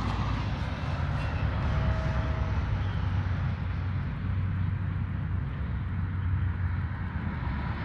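Steady road traffic noise from cars on the adjacent street, with a constant low hum underneath.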